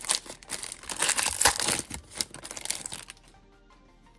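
Foil wrapper of a baseball card pack crinkling and tearing as it is ripped open, for about three seconds, then it goes quiet.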